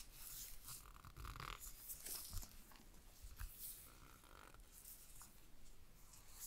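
Faint rustling and rubbing of stiff paper packaging as gloved hands lift and unfold the paper wrap around a pair of headphones, with a few light clicks.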